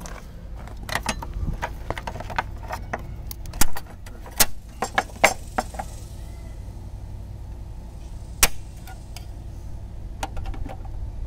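Sheet-steel patch panel clinking and clanking as it is handled on a ridged metal running-board step and offered up against a 1997 Jeep Wrangler TJ's steel body. The sharp clanks come thickest in the first half, with one more about two-thirds of the way through and a few light taps near the end.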